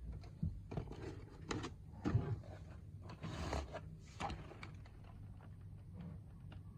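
Hands handling a car alarm kit and its packaging: irregular rubbing, scraping and light knocks, with a longer rustle about three and a half seconds in.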